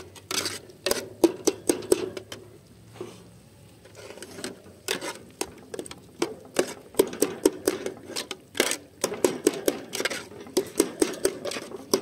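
Metal cooking utensils knocking and scraping against a metal pot and frying pan while food is stirred. It is a fast, irregular run of clinks and clanks with a brief lull a few seconds in.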